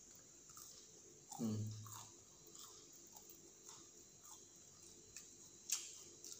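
A person chewing food, with small crunchy clicks as a breaded fried chicken piece is pulled apart by hand. A brief low hum of the mouth about a second and a half in is the loudest sound, and there is one sharp click near the end.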